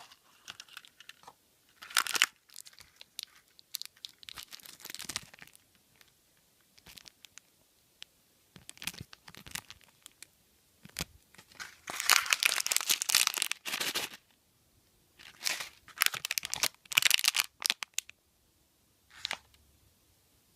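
Foil wrapper of a chocolate surprise egg being torn and crinkled open by hand, in irregular rustling bursts, loudest about twelve and sixteen seconds in.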